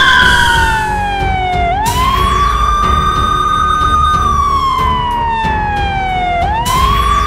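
Police siren wailing: a tone that slides slowly down in pitch and then sweeps quickly back up, twice, over background music.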